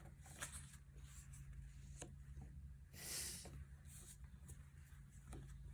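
Near silence: room tone with a steady low hum, a few faint clicks and a brief soft hiss about three seconds in.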